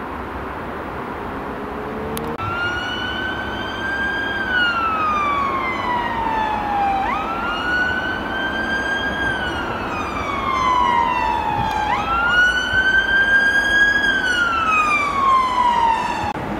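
Emergency vehicle siren wailing, starting a couple of seconds in. The pitch slowly climbs, holds, then falls away before jumping back up, three cycles of about five seconds each, and it stops near the end.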